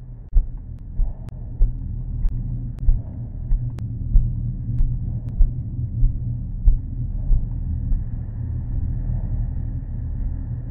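Steady low rumble of a vehicle driving over sand, heard muffled through a GoPro housing, with sharp knocks every half second or so as it jolts.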